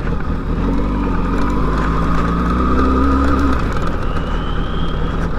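The 599 cc inline-four engine of a 2008 Kawasaki ZX6R sport bike running at low revs under light throttle. The engine note drops away about three and a half seconds in, and a faint rising whine follows near the end.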